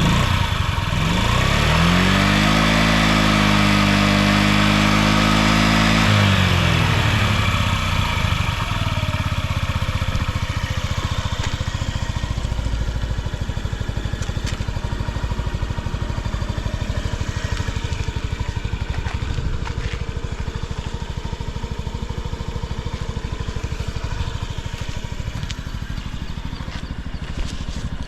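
Honda Zoomer (AF58) scooter's carbureted 50cc four-stroke single-cylinder engine revved up about a second in and held high for several seconds, then dropping back to a steady idle. It runs without abnormal noises, as the seller states.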